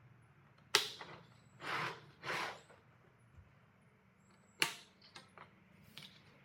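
Sharp hard-plastic clicks and short scraping from the yellow plastic clips being worked onto the rims of two stacked plastic pails: a click about a second in, two brief scrapes, a louder click about two-thirds of the way through, then a few small ticks.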